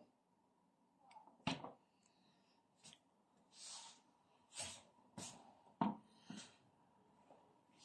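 Faint handling noise from a phone being carried and turned: a few scattered soft knocks and brief rustles, the loudest about a second and a half in and again near six seconds.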